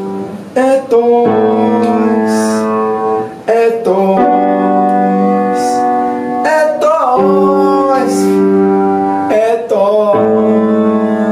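A man singing along to his own playing on a grand piano, holding long notes and sliding in pitch from one to the next every two to three seconds.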